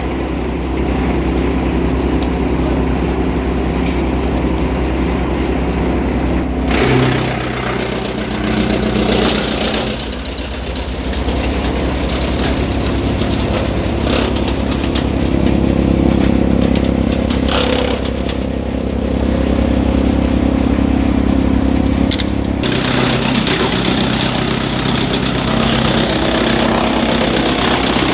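Wood chipper machine running with a steady engine-like drone, its note and load changing several times.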